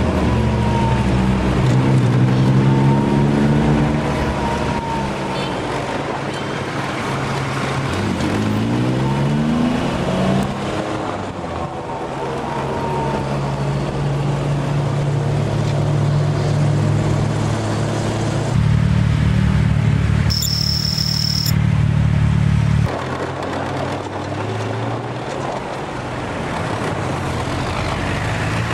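Vehicle engine running through traffic. Its pitch climbs and drops as it speeds up and eases off about two and nine seconds in, then it runs more steadily. A short high-pitched tone sounds about twenty seconds in.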